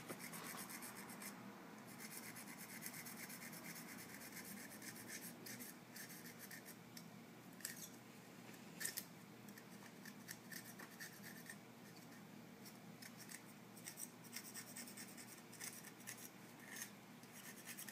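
Small scissors snipping and scraping at a thin wire: a faint, continuous run of fine scratches and ticks, with a couple of sharper snips near the middle.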